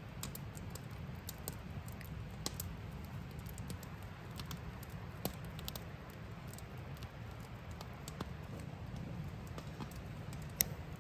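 Irregular faint clicks and scrapes of a ferro rod being struck to throw sparks onto wood shavings, with small crackles as the shavings catch, over a low steady rumble.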